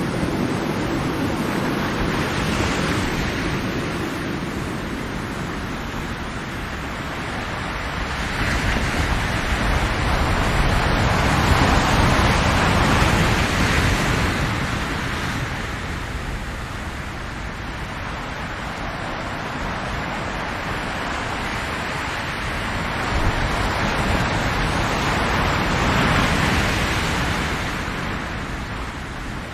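Ocean waves breaking and washing ashore, a continuous rushing that swells and ebbs in slow surges several seconds apart.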